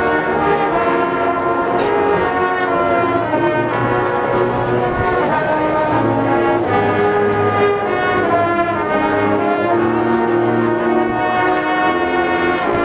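Marching band playing, with the brass section holding long sustained chords that change every second or two.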